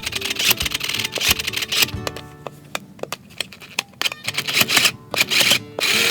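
Sew Cool toy sewing machine clattering in fast runs of clicks that stop and start, over background music.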